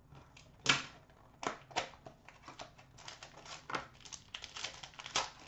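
A small cardboard pack box of trading cards being slit open and the cards pulled out and handled: sharp cardboard snaps and clicks, the loudest about half a second in, with papery rustling of the cards in the second half.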